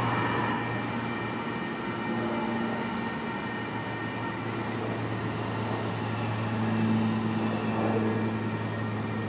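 AnsaldoBreda P2550 light-rail train pulling away from a station platform: a steady low hum under a rumble, a little louder about seven seconds in.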